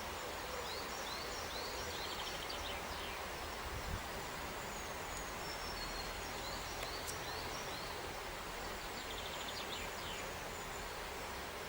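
A small songbird singing three short phrases of quick high chirps, each ending in a rapid trill, over steady outdoor background hiss. A single soft knock comes about four seconds in.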